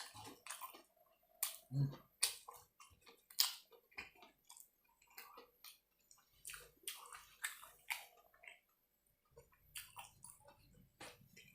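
Close-miked eating sounds: wet chewing and lip smacks with irregular crisp clicks, a person chewing a mouthful of food.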